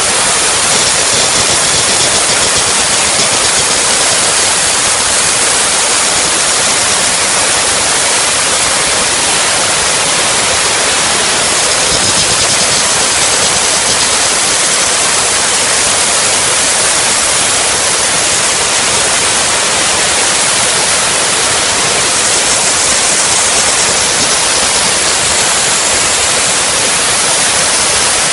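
Steady, loud hiss of a steam jet from the steam gun of an LPG-fired mobile steam car wash machine, directed at a car wheel.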